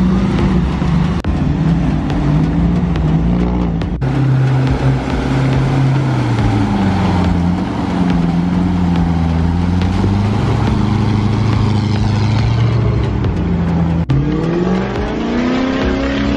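Off-road 4WD engines under load, revving up and down as they crawl over creek rocks. The engine sound changes abruptly about four seconds in and again near the end, where an engine revs up with rising pitch.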